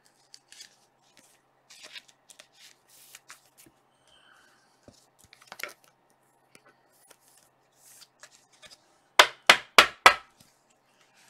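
Trading cards being handled: light sliding and rustling of cards with small clicks, then four sharp knocks in quick succession about nine seconds in.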